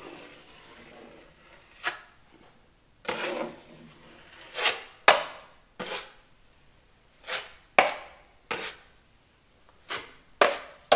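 A steel drywall knife spreading and scraping wet joint compound over drywall in about ten short, irregular strokes, some starting with a sharp click.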